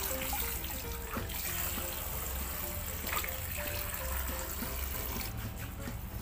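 Water spraying steadily from a garden hose nozzle and splashing into a shallow paddling pool.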